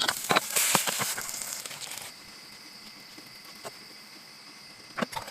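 Crinkling and rustling handling noise with sharp clicks for about two seconds, then a faint steady hiss with a couple of clicks near the end.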